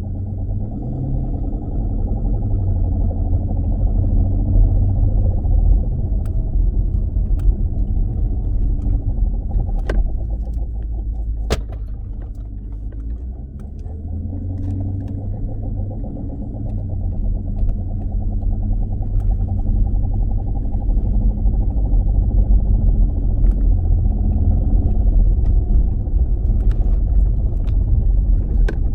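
Driveline of a 2016 Dodge Challenger Scat Pack rumbling on the move, the low drone swelling, easing off briefly around the middle, then building again: the sign of a bad driveshaft carrier bearing. A couple of sharp clicks sound near the middle.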